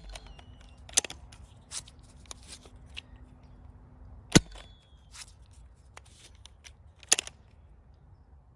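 Nerf Nite Finder spring-plunger blaster firing Whistler darts: three sharp snaps of the plunger, at the start, about four seconds in and about seven seconds in. Between shots come smaller clicks and clacks as the blaster is reprimed, and a faint short whistle follows the first two shots as the darts fly.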